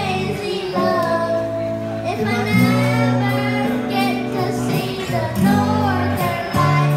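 A young girl singing into a microphone, her amplified voice carried over backing music with held low notes.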